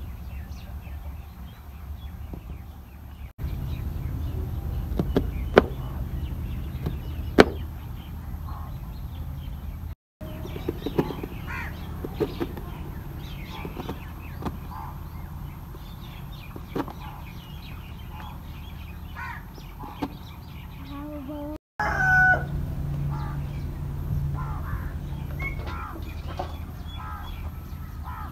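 Knife slicing onions on a plastic chopping board, with a few sharp taps of the blade, under small birds chirping and a steady low hum. A rooster crows once, loudly, about three-quarters of the way through.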